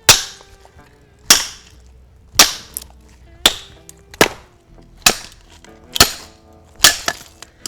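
A hammer striking the back of an axe head about once a second, eight sharp metallic blows with a brief ring after each, driving the blade into a piece of firewood to split it into kindling.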